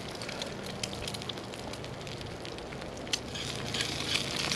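Wood campfire crackling with scattered sharp pops, over a sizzle that grows louder about three and a half seconds in: an egg frying in oil in a cast iron pan set on the coals.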